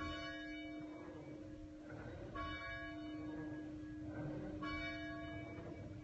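Church bell tolling: a single bell struck three times, a little more than two seconds apart, each stroke ringing out over the bell's low hum, which sounds on between strokes.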